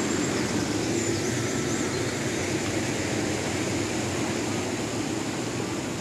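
A stream rushing steadily, an even hiss of flowing water with no breaks.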